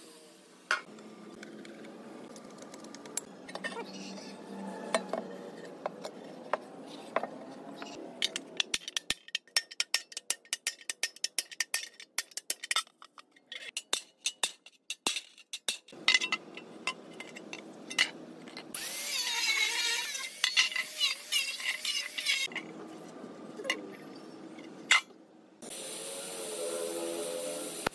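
Hammer blows on a thin sheet-steel pan, a fast run of sharp metallic strikes through the middle, with scraping and handling noise before it. Near the end a gas torch starts hissing steadily as it heats the pan for brazing.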